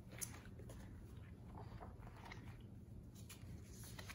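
Paper pages of a catalog being turned by hand: faint rustles and a few short flicks, one sharper just after the start, over low room hum.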